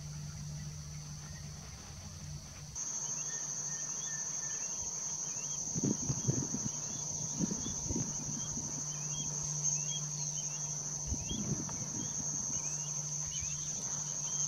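Night insects, crickets, chorusing in a steady high trill that grows louder about three seconds in, with scattered faint chirps. A steady low hum runs beneath, and a few soft bumps come near the middle and past two-thirds of the way through.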